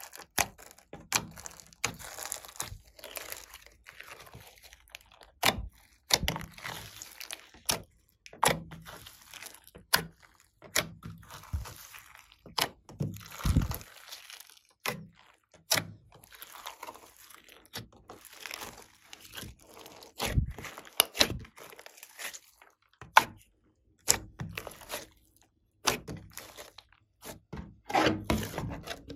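Slime mixed with glitter and sequins being pressed, stretched and folded by hand, giving many irregular sharp pops and clicks with wet squishing between them.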